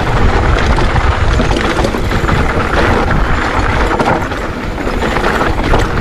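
Mountain bike riding fast over a rough dirt trail: a steady low rumble of wind and tyres, with many small rattles and clatters from the bike over the ground.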